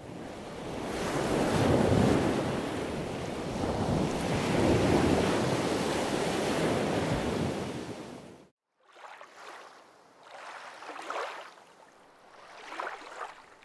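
Bow wave of a wooden gulet under way, water rushing and splashing past the hull with wind buffeting the microphone. About eight seconds in it cuts off abruptly, followed by three quieter swells of water lapping.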